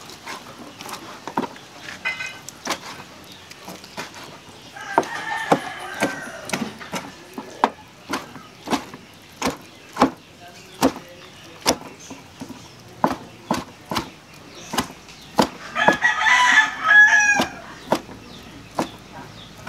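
Kitchen knife chopping boiled offal on a cutting board: steady chops, a little under two a second. A rooster crows twice behind it, about five seconds in and again near the end, the second crow the loudest sound.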